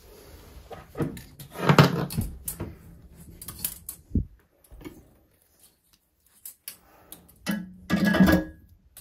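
Irregular knocks and metallic clatter from a stainless bidet sprayer and its braided metal hose being handled and hung in its holder on a toilet tank. The loudest clatter comes about two seconds in and again near the end.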